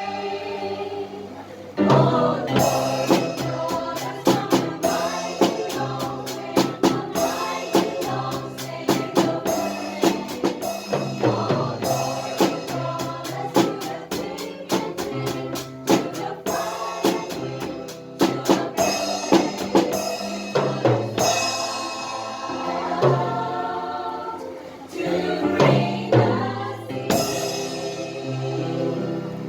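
Gospel music with a choir singing over a band and a drum kit keeping a steady beat of frequent hits; the music drops back briefly just before two seconds in, then comes in loud again.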